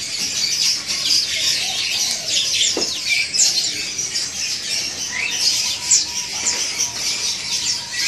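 Many caged songbirds chirping and twittering at once: a dense chorus of short, high chirps and quick trills overlapping one another.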